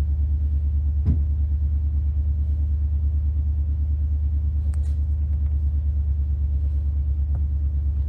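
Car engine idling, heard from inside the cabin as a steady low rumble with a slight even pulse. A faint click or two sits over it.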